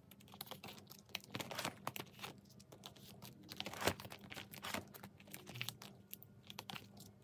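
Plastic photocard sleeves crinkling and ticking as cards are slid out of binder pocket pages and stacked in the hand: a string of light rustles and clicks, with one sharper click about four seconds in.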